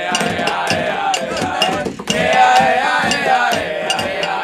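A group of voices chanting a song refrain in the style of a crowd chant, over percussion with evenly spaced sharp clicks. There is a short break about two seconds in.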